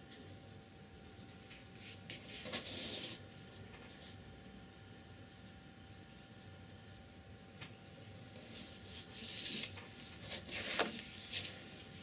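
A sheet of heavy paper being slid and turned on a table, in two spells of rustling and rubbing several seconds apart; the second ends in a light tap.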